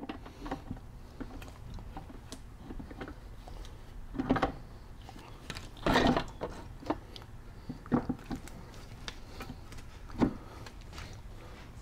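Metal parts of a VW transaxle clunking and clicking as the gear carrier assembly is lowered into the aluminium case and onto the main shaft and reverse idler shaft. There are several separate knocks, the loudest about six seconds in.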